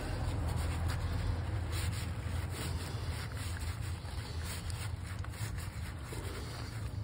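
Rubbing and scraping of hands and tools at work on a car engine, with the microphone being handled, over a steady low rumble.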